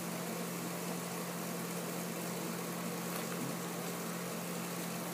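Steady low hum with an even hiss: background room noise, with no distinct handling sounds.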